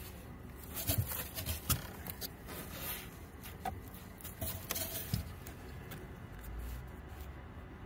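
Scattered light clicks, knocks and rustling as hands handle a can of PVC pipe glue with its lid-mounted dauber and a length of flexible PVC pipe, while a leaking hot tub pipe joint is being glued.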